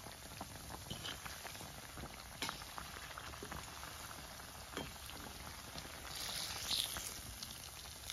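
Oil sizzling and bubbling around gram-flour-battered bread chops as they deep-fry: a faint, steady frying hiss with scattered small crackles and pops.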